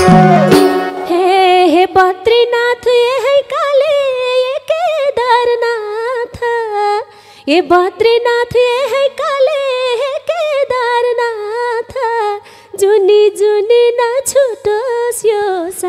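A woman singing a Nepali dohori folk-song line alone, unaccompanied, in long, wavering, ornamented held notes. The band's instruments drop out about a second in.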